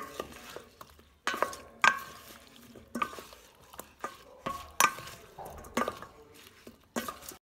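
Two wooden spoons tossing dressed cucumber slices in a stainless steel mixing bowl: wet scraping and shuffling, with irregular sharp knocks about once a second as the spoons hit the bowl.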